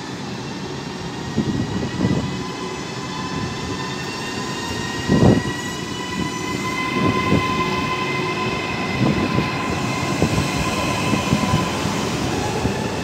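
Hitachi Rock (ETR 521) double-deck electric train pulling away, its traction motors whining and the whine slowly rising in pitch as it gathers speed, with irregular low thuds of wheels over rail joints, the loudest about five seconds in.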